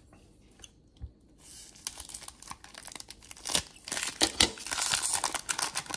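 Wax-paper wrapper of a 1991-92 Fleer basketball card pack being torn open and crinkled by hand, a dense crackling that starts about a second and a half in.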